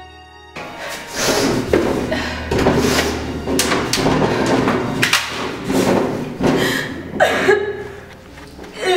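A run of knocks and thuds over a dense, noisy sound bed, then a woman's distressed crying near the end.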